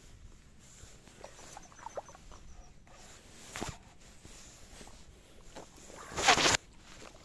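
Handling noise from a fishing rod and baitcasting reel held close to the microphone: faint clicks and rustles, then a loud, brief rustling burst about six seconds in.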